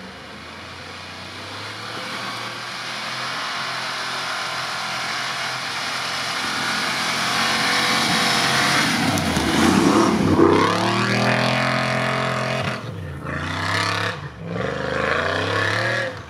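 Range Rover engine pulling under load up a snowy slope, growing louder as the vehicle approaches. About ten seconds in the revs swing up and down, and near the end they drop and climb again several times as the tyres churn through snow.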